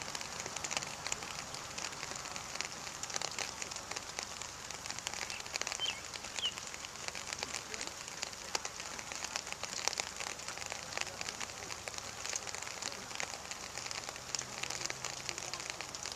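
Steady rain pattering on a nearby surface, a dense crackle of individual drops. Two short, high chirps come about six seconds in.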